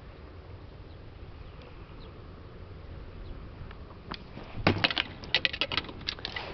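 A faint low rumble, then from about four seconds in a quick run of sharp clicks and knocks as spinning rods and a reel are handled and knock against each other in an inflatable boat.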